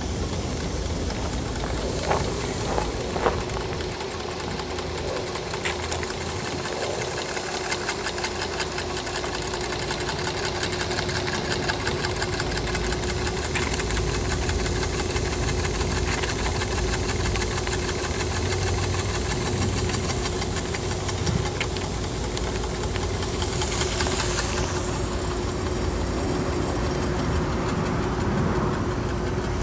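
Small steam engine, running on steam from a beer-bottle boiler, starting up on its own after a few knocks and then running with a fast, even ticking beat over a steady hiss of steam escaping from a leak. About three-quarters of the way through there is a louder rush of steam hiss.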